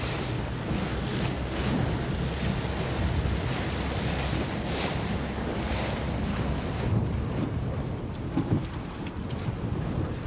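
Wind buffeting the microphone over the wash and splash of water around boats under way.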